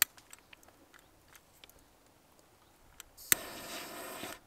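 Handheld butane torch being fired: a few faint clicks, then about three seconds in a sharp igniter click and the jet flame hissing steadily for about a second before it cuts off. The flame control is set low, so the torch gives little gas at first.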